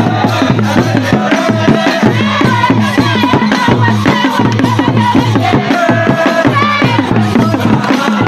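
Acholi Bwola dance music: many hand-held drums beaten with sticks in a fast, steady rhythm, with voices singing over them.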